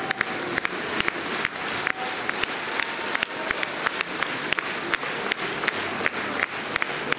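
Theatre audience applauding steadily during ballet curtain-call bows, with sharp individual claps close by standing out from the dense clapping.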